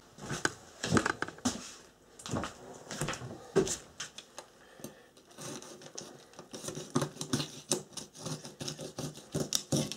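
A kitchen knife and fork working on a whole pike on newspaper: irregular metal clicks, taps and scrapes as the fish is cut behind the head for filleting. The strokes come thick and fast in the last few seconds.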